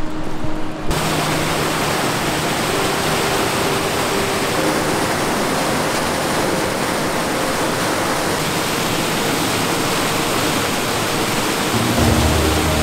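Hovea Falls: creek water rushing steadily over granite rapids and cascades. Background music cuts out about a second in and comes back in near the end.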